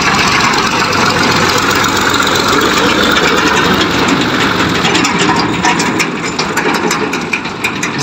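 Fiat 640 tractor's diesel engine running steadily as it drives along pulling a trolley, with light rattling clicks in the last few seconds.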